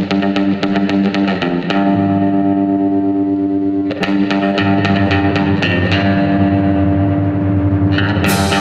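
Background rock music led by distorted electric guitar, with a steady beat.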